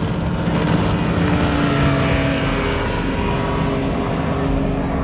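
Hot rod race boat running at speed across open water, its engine giving a loud, steady drone over a hiss of water and wind.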